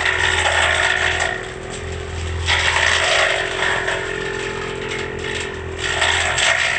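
Brush cutter engine running steadily at high speed while the cutter slashes through thick undergrowth, the cutting noise swelling and easing three times.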